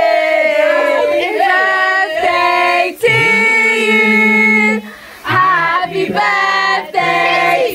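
A group of women and children singing together without accompaniment, in long held notes, with a brief pause about five seconds in.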